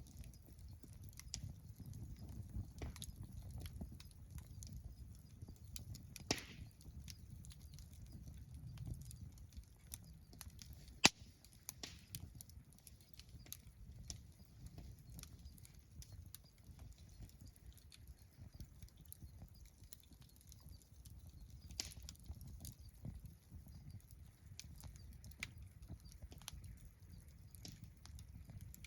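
Wood campfire crackling: irregular snaps and ticks over a low steady rumble, with a few sharper pops, the loudest about eleven seconds in.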